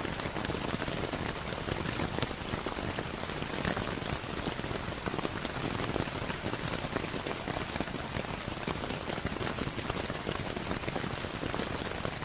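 Steady rain falling, a dense continuous patter of drops on a surface.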